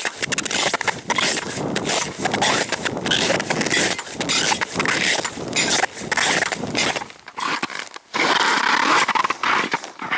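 Boots crunching through dry snow in steady walking footsteps, about two steps a second.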